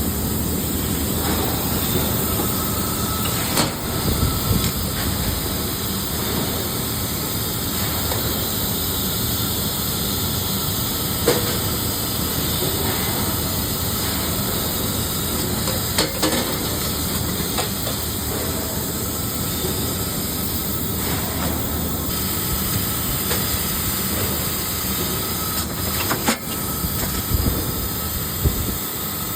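Steady hiss of a multi-axis automatic laser welding machine at work on metal kitchen knives, with a few sharp clicks and knocks scattered through.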